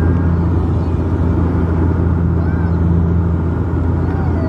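Cabin drone of a Bombardier Dash 8 Q400 turboprop in flight: the six-bladed propellers give a steady low hum with a second tone an octave above it, over a constant rush of airflow.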